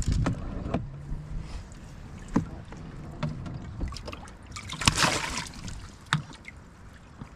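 Handling noises aboard a small fishing boat: scattered knocks and clicks, with a short, louder rush of noise about five seconds in.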